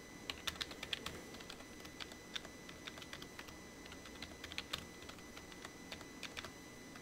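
Computer keyboard keystrokes: faint, irregular clicks in short runs as a password is typed in and then typed again to confirm it.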